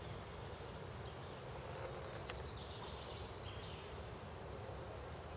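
Faint steady outdoor background noise with a low rumble, a few short high chirps and one sharp click about two seconds in.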